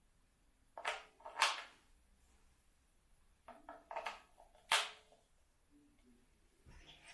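Small objects being handled: a few short rustles and clicks in quick groups, with quiet gaps between.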